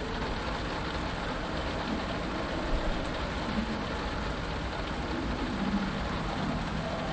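Steady rain falling on a cockpit canopy, with a low rumble underneath and a few faint, short low tones.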